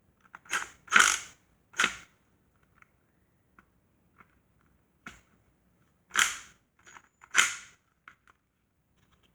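A click-type torque wrench tightening bolts on a transmission: sharp, short clicks in two groups, three about half a second to two seconds in and three more about five to seven and a half seconds in, with faint ticks of tools on metal between.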